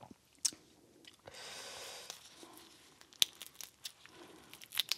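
Gloved hands cracking and peeling the shells of boiled crawfish: a few sharp cracks of shell, with a soft crinkling rustle of shell and glove about one and a half seconds in.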